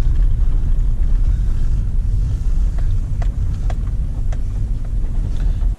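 Pickup truck driving: a steady low rumble of engine and road noise, with a few faint clicks, cut off abruptly at the end.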